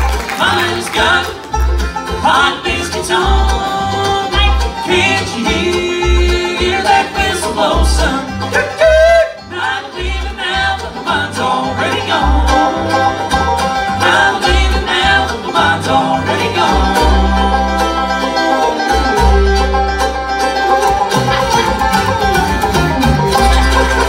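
Live bluegrass band playing an instrumental break without singing: banjo, acoustic guitars, mandolin and fiddle over an upright bass keeping a steady beat.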